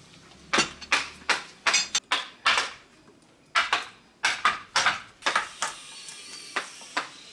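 Hand carving of a wood block held in a metal bench vise: a chisel driven into the wood in a series of sharp, irregular knocks, with a short pause about two seconds in.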